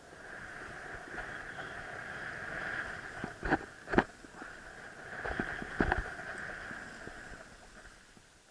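Skis hissing through soft, cut-up snow on a descent, swelling and fading with the turns. Several sharp knocks in the middle, the loudest about four seconds in.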